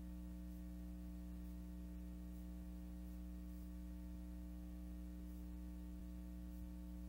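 Faint steady electrical hum with a low hiss and faint soft ticks about once a second. No aircraft or other live sound is heard.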